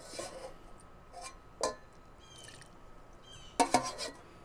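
Knocks and scraping of a utensil in the plastic bowl of a Ninja food chopper as mashed blueberries are scooped out: one sharp knock about a second and a half in, and a quick cluster of clatter near the end, which is the loudest part. Short bird chirps come now and then.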